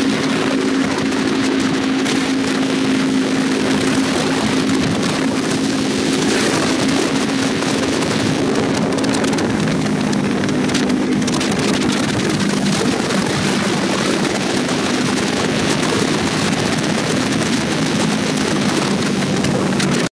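Motorcycle engine running steadily at cruising speed, heard from on the bike, with constant wind rush over the microphone. The engine note drops slightly about halfway through.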